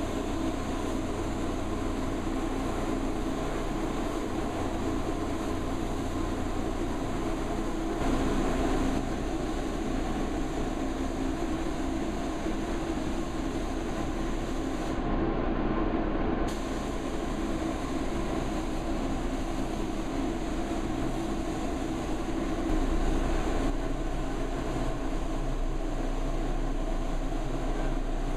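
Steady rushing air noise in a paint spray booth, from the booth's airflow and the air-fed spray gun.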